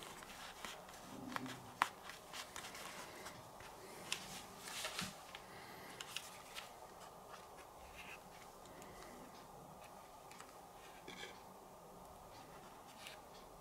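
Faint handling sounds: scattered small clicks and light rustles as the headphones and their packaging are handled, busiest about four to five seconds in and thinning out after.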